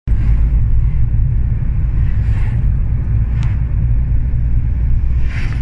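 A car driving along a road: a steady low rumble of engine and road noise. There is a light click about three and a half seconds in.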